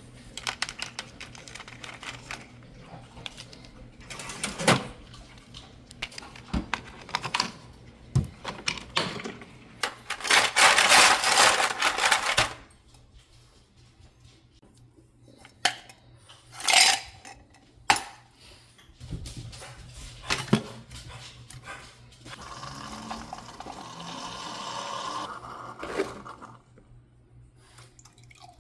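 Objects being handled around a room: scattered clicks, knocks and clatter, with a dense rush of noise lasting about two seconds roughly ten seconds in.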